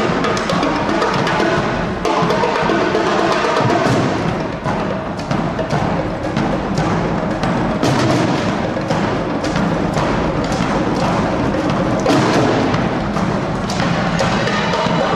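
A drum squad playing a loud, continuous cadence of rapid, closely spaced drum strikes.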